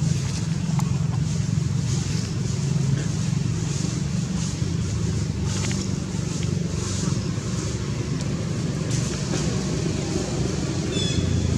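Steady low drone of a motor vehicle engine running nearby, with soft rustling of dry leaves as the macaques shift about. A brief high squeak comes near the end.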